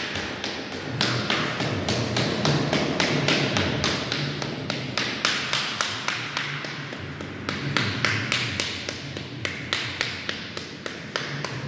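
A white rubber mallet tapping repeatedly along a yellow FRP stair nosing strip, pressing it down into its adhesive on the stair tread. Quick, even, sharp taps, about three to four a second.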